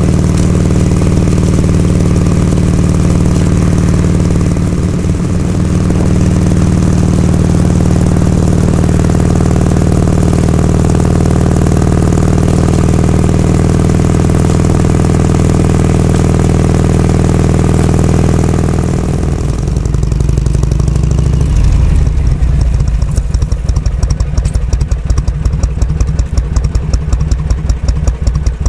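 Harley-Davidson Shovelhead FLH's V-twin engine running at a steady speed. About two-thirds of the way through it drops away and settles into a loping idle with an uneven, pulsing beat.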